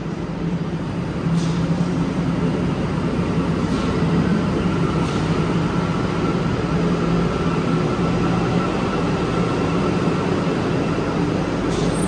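Rubber-tyred Santiago Metro Line 1 train running at the platform: a steady rumble that grows louder about a second in, with a faint steady whine through the middle.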